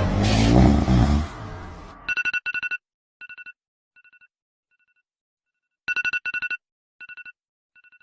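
A loud, rasping, engine-like snore trails off in the first two seconds. Then an electronic phone ringtone beeps in quick trains of pulses on two steady pitches, with loud bursts about two and six seconds in and fainter ones between.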